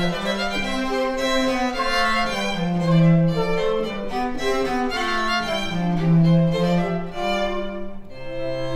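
Slow bowed-string music: a violin melody of held notes over a lower sustained line.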